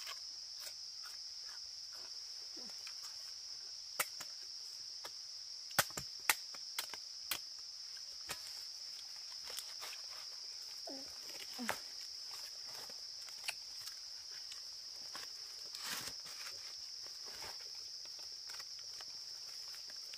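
Steady high-pitched insect chorus, with scattered sharp clicks and knocks, the loudest about six seconds in.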